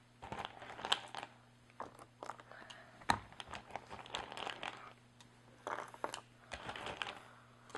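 Broken crayon pieces clicking and rustling as they are handled and dropped into a silicone mold, a scatter of small irregular clicks with one louder knock about three seconds in.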